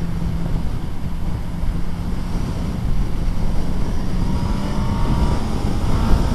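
Suzuki B-King's 1340 cc inline-four running at a steady cruise, with heavy wind rush over the microphone from riding at highway speed.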